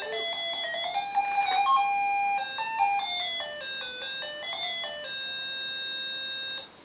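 Baby walker's electronic play tray playing a tinny beeping tune of stepped notes, set off by the child pressing its buttons. The tune ends on a long held note that cuts off near the end.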